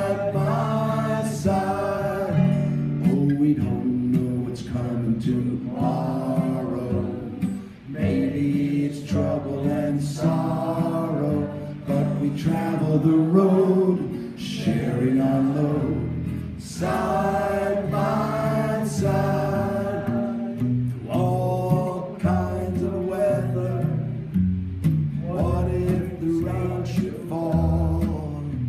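A popular song sung with guitar accompaniment, with the audience singing along.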